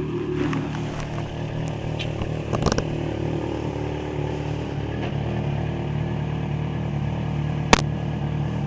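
Yamaha XJ6 motorcycle's 600 cc inline-four engine running at a steady pitch, with a brief clatter about two and a half seconds in and a sharp click near the end.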